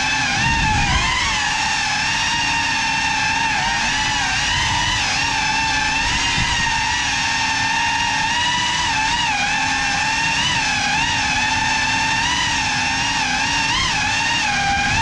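Small FPV drone's electric motors and propellers whining, the pitch wavering up and down with the throttle, with brief dips about a second in and again near the end.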